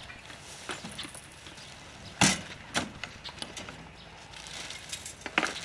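A wheelbarrow being tipped out and set down on the grass, giving a few sharp knocks and clunks. The loudest comes about two seconds in, with another just after and one more near the end.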